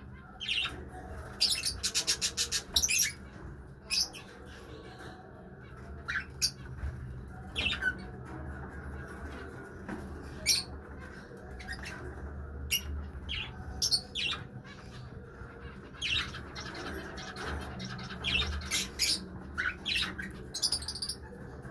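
Lovebirds calling with sharp, high chirps and squawks, one after another, including a quick chattering run about two seconds in.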